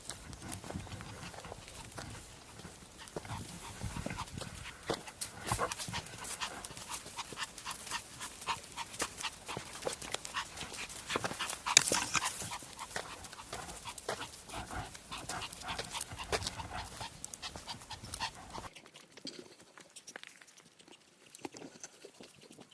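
Maltese dog panting hard, with a dense patter of quick scuffing clicks throughout. About three-quarters of the way through, it all drops off to a much quieter sound.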